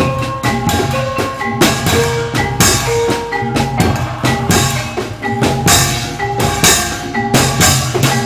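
Live Javanese incling dance music: drums beating a fast, steady pattern under short, repeating pitched notes from tuned metal percussion.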